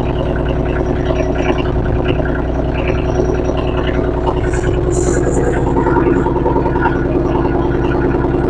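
Kioti CX2510 compact tractor's three-cylinder diesel engine running steadily at low speed.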